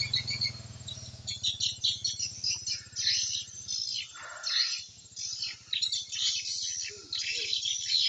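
Swiftlets twittering: a dense, continuous stream of rapid high chirps. A low steady hum fades out in the first second.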